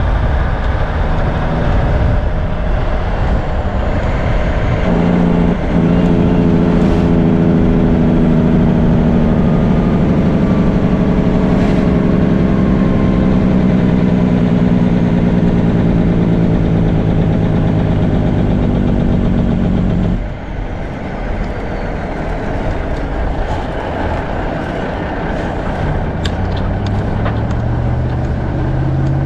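Cummins diesel engine of a 1984 Freightliner cab-over truck pulling on the road, a steady engine note for about fifteen seconds. About twenty seconds in it drops off and gets quieter, then near the end the pitch rises again as it pulls away.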